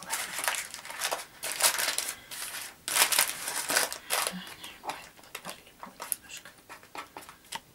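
Baking paper rustling and crinkling under hands as the overhanging edges of yeast dough are folded in over a pie filling, in irregular bursts, loudest about three seconds in and sparser toward the end.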